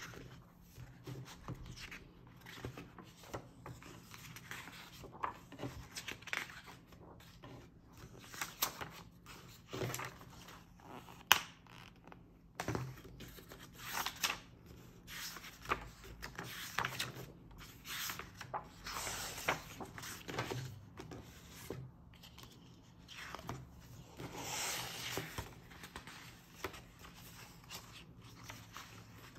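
Paper pages and sticker sheets of a softcover colouring book being handled and turned, making a string of short rustles and swishes, with a sharp tap about eleven seconds in.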